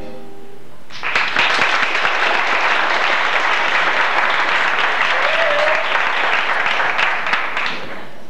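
Theatre audience applauding at the end of a musical number, starting about a second in and stopping shortly before the next music.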